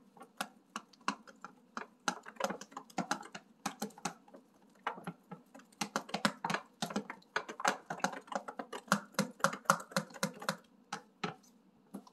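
Wooden spoon beating a raw egg in a dish: a quick, irregular run of light clicks and taps as the spoon strikes the dish, stopping about a second before the end.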